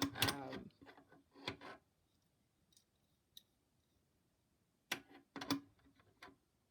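Scattered clicks and light knocks from hands and tools working the machine's motor bolts, with a nearly silent stretch in the middle and a cluster of sharper clicks about five seconds in.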